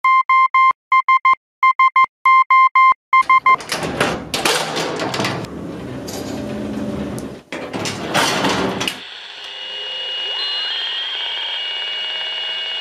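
Morse-code-style beeping: one steady tone keyed in short and long pulses. It is followed by a loud, noisy rumbling clatter lasting about five seconds, which breaks off briefly about halfway. Then come steady high electronic tones with slow rising and falling glides.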